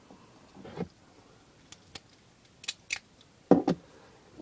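Small plastic toy robot being handled and set on a wooden table: a few light plastic clicks, then a couple of louder knocks about three and a half seconds in.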